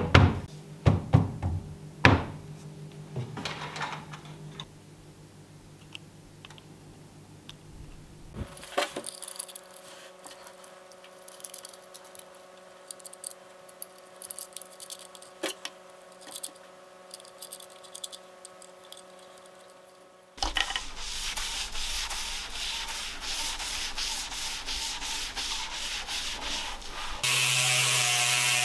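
Knocks and taps as a fabric-covered speaker grille panel is pressed into a wooden cabinet, then scattered small clicks and a stretch of scratchy rubbing. Near the end a random orbital polisher with a wool buffing pad starts up and runs steadily, louder than everything before it.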